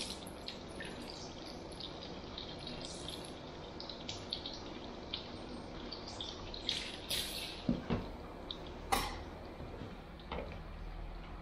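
Water running from a handheld shower sprayer onto hair in a shampoo basin, with dripping and small splashes throughout. A few louder clicks and knocks come about two-thirds of the way in.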